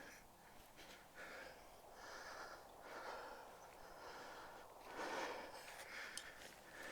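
A person breathing audibly close to the microphone: a string of soft, noisy in-and-out breaths about one a second, one stronger breath about five seconds in.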